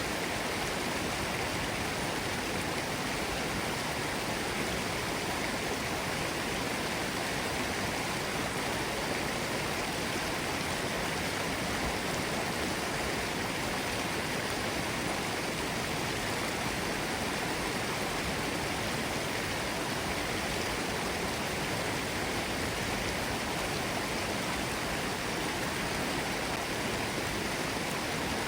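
Mountain stream bubbling and rushing over rocks: a steady, even water noise.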